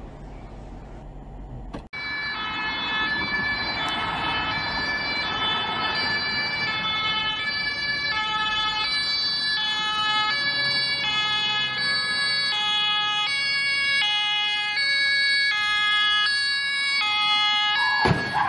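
German ambulance two-tone siren (Martinshorn) alternating steadily between a high and a low note. Near the end comes a sudden loud crash as a car collides with the ambulance. Before the siren starts, about two seconds of low road rumble from a car driving.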